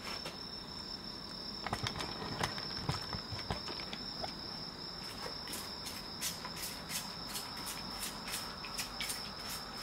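Crickets chirping: a steady high trill with rapid short clicks throughout, a few louder clicks about two to three and a half seconds in.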